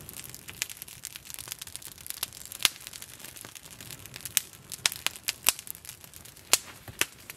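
Small wood campfire crackling, with irregular sharp pops and snaps, a few a second, over a faint hiss.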